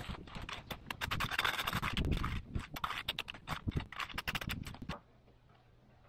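Fan-shaped leaf rake scraping through sawdust and bark chips on dirt in quick repeated strokes, stopping abruptly about five seconds in.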